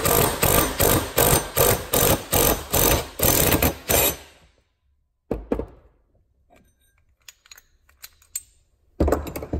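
Cordless DeWalt 20V impact wrench hammering in pulses on a jaw puller's forcing screw, pulling a pressed-on bearing housing off a raw water pump shaft; it stops about four seconds in. A couple of metal knocks follow as the freed housing is handled, then a louder clatter near the end.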